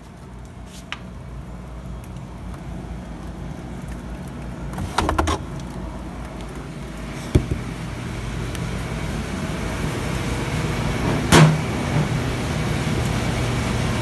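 Evaporative swamp cooler's fan running, a steady low hum that grows louder as it is approached. A few knocks and clunks break in: a short clatter about five seconds in, a sharp knock a couple of seconds later, and another loud knock near the end.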